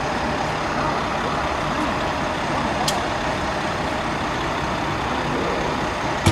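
Steady noise of heavy vehicles idling, with a sharp click near the end.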